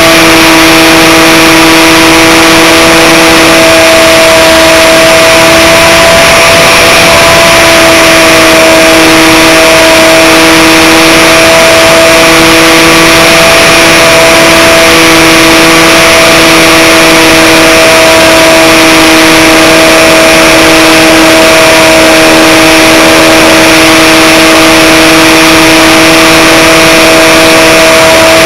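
Aerobird Extreme RC airplane's electric motor and propeller whining steadily at an almost fixed pitch, with a loud, even rush of noise over it, heard through the camera carried on the plane.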